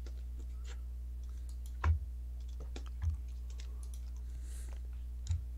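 Scattered clicks of someone working a computer, three of them louder and about a second or two apart, over a steady low electrical hum.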